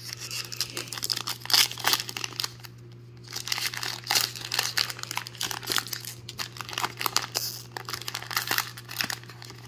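Plastic wrapper of a Topps Heritage baseball card pack crinkling and tearing as it is worked open by hand, in irregular bursts with a short lull about two to three seconds in; the pack resists opening.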